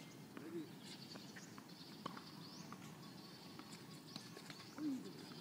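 A few sharp knocks of a tennis ball being struck by a racket and bouncing on a hard court, faint against an outdoor background with birds chirping.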